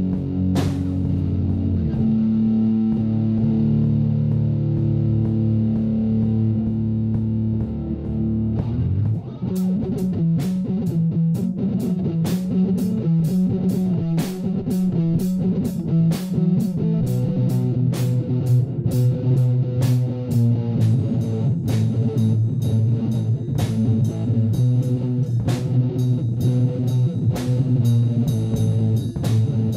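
Rock song with electric guitar and bass: held chords at first, then, about nine seconds in, a steady beat of sharp hits comes in and drives the rest of the passage.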